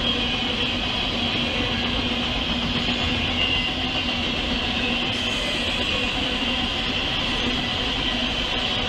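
Freight train of autorack cars rolling past at steady speed: a continuous rumble of wheels on rail, with a steady high whine above it.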